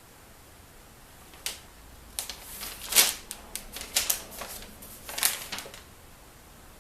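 An irregular run of sharp clicks and knocks, about a dozen over some four seconds, starting about a second and a half in: hands working the parts of a new DeWalt sliding miter saw while trying to free its locked-down arm.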